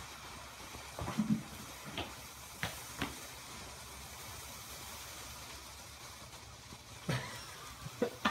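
Black snake firework burning with a faint steady hiss, broken by a few sharp crackles: one about a second in, a few more over the next two seconds, and two near the end.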